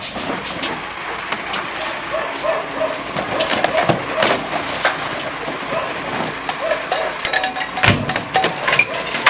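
Garbage truck running, with many irregular clatters and knocks over a constant noisy rumble.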